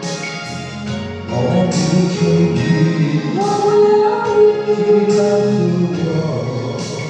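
Chinese pop ballad: a backing track with a steady beat, a cymbal-like hit about every second and a half, under a sung melody with held, gliding notes.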